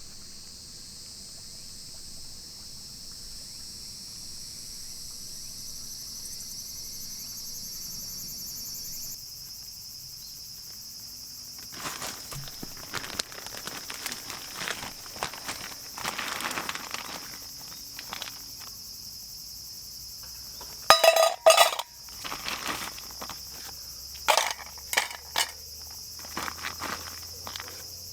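Insects, crickets and the like, chirping in a steady high-pitched chorus. From about halfway through come scattered knocks and clicks of handling, with a loud short clatter about two-thirds of the way in.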